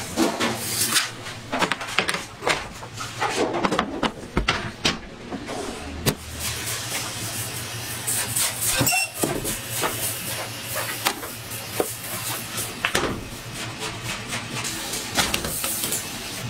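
Metal baking trays and a stainless-steel deck oven's door being handled: an irregular run of clacks, knocks and scrapes over a steady low hum.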